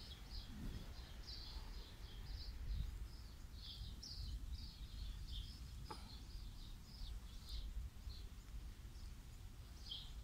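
Small birds chirping faintly, a steady run of short high notes, over a low rumble.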